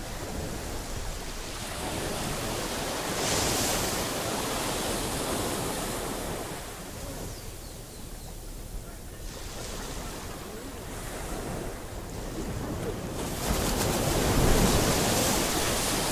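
Sea waves breaking and washing up a beach, swelling louder about three seconds in and again near the end, with wind on the microphone.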